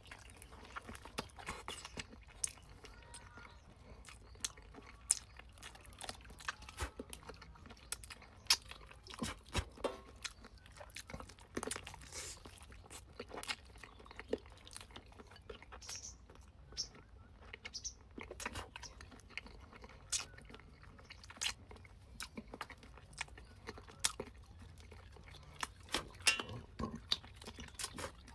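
A person eating free-range chicken close to the microphone, chewing and biting, with many irregular sharp clicks.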